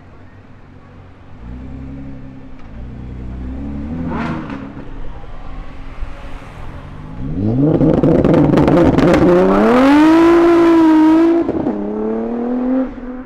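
Loud car exhaust as a car accelerates hard. After a low rumble, the engine note climbs steeply from about halfway in, with a crackling rasp, and is loudest before it drops suddenly at a gear change. It then rises again briefly near the end.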